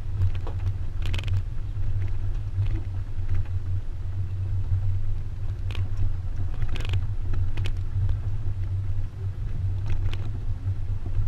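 Steady low rumble of a moving pickup truck heard from its open bed, with a few short knocks scattered through it.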